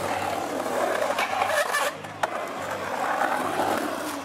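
Skateboard wheels rolling and carving across a concrete bowl, with a few sharp clacks from the board between about one and two seconds in.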